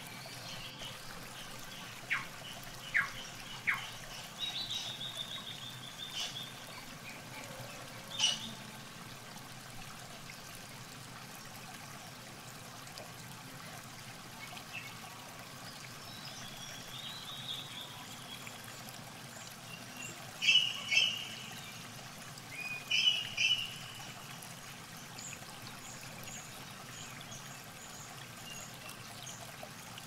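River water trickling and flowing steadily, with small birds chirping now and then. The loudest calls come in two short clusters about two-thirds of the way through, followed by a run of quick high chirps.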